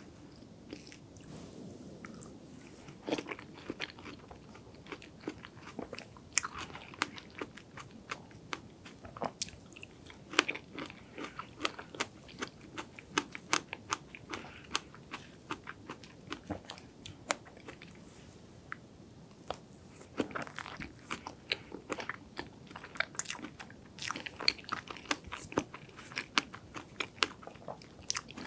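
Close-miked eating of soft chocolate strawberry cake: chewing with many irregular sticky mouth smacks and clicks, and wooden chopsticks cutting into the cake.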